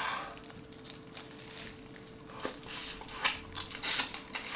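Close-up eating sounds: irregular crunching and biting of soy-marinated raw shrimp, mixed with the crinkle of disposable plastic gloves, busier in the second half.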